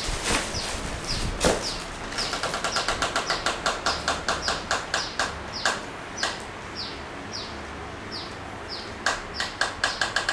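A bird calling: a short, high, falling chirp repeated about twice a second, over a fast ticking, with a single knock about a second and a half in.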